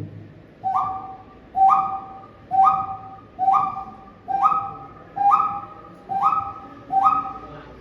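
A man imitating a bird's call with his voice, a whistle-like two-note call repeated eight times at an even pace: each time a short lower note jumps up to a higher held note.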